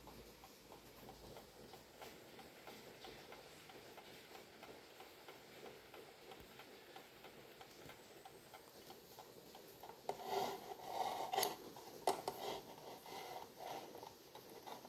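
Vintage HES Stella alarm table clock ticking faintly and steadily. From about ten seconds in, louder irregular knocks and rubbing come in, with two sharp clicks.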